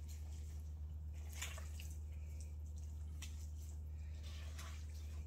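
Smoked pork scotch so tender it comes apart by hand, torn and squished by a gloved hand: soft, scattered wet squelches and tearing. A steady low hum runs underneath.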